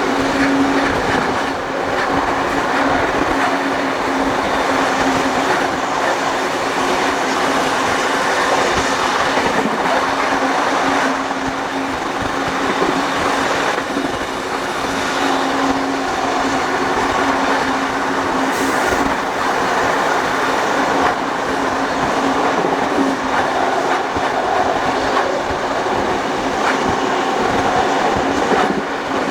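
Steam-hauled heritage passenger train running along the track: a continuous steady rush of wheel and rail noise with a steady hum underneath.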